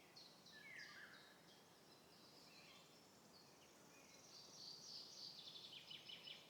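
Faint bird chirping: scattered short chirps, then a quicker run of chirps near the end.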